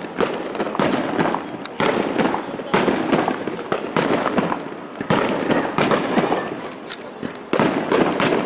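Star mine fireworks barrage: aerial shells launching and bursting in quick succession, a string of sharp booms about a second apart over a continuous rush of smaller bursts.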